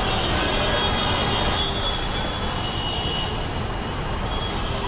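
Steady road traffic noise from a busy city junction, with a small bell rung in three quick, high-pitched strokes about a second and a half in.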